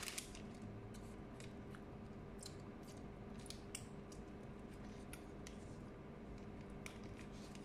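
Faint, scattered crinkles and small ticks of fingers handling thin warqa pastry sheets and their plastic wrapper, over a steady low hum.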